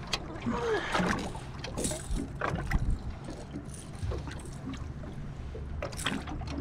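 Water lapping against a small aluminium boat's hull, with scattered light clicks and knocks as a fish and fishing line are handled.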